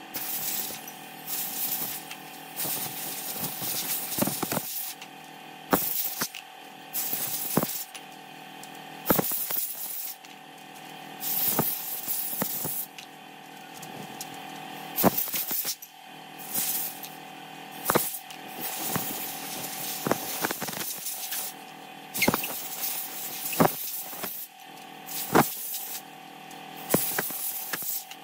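A screwdriver scraping caked grime off small chainsaw engine parts on an aluminium tray: repeated short scraping strokes, with sharp metallic clinks of the tool and parts against the tray.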